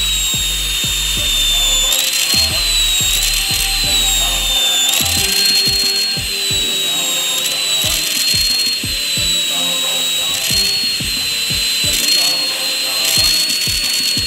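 Electric drill spinning a felt buffing pad to polish an angle grinder's flange nut, its motor giving a steady high whine that dips in pitch now and then as the part is pressed on. Background music with a steady beat plays underneath.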